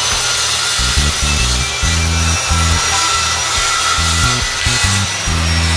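Handheld circular saw running steadily as it cuts along the edge of a wooden tabletop, with a high whine over its hiss. Background music with a pulsing bass line plays underneath.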